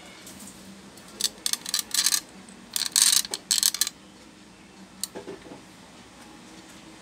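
Bursts of metallic scraping and clinking from small tools being handled on the workbench, in two clusters over a couple of seconds, then a single sharp click.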